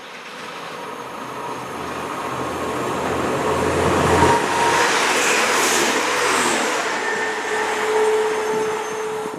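TransPennine Express Class 185 diesel multiple unit running through the station at speed: its engine and wheel noise builds as it approaches, peaks about four to six seconds in, then fades as it draws away.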